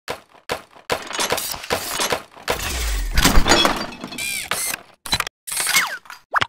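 Animated-cartoon sound effects: a rapid string of clatters and knocks, with a crash like breaking glass and a low thud about three seconds in. A few short squeaky gliding noises come near the end.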